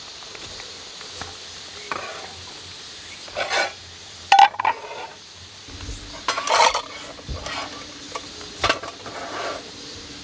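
Camping kitchenware being handled: a run of clinks, scrapes and rattles, with one sharp metallic clink about four and a half seconds in, over a steady hiss. A low steady hum comes in near the middle.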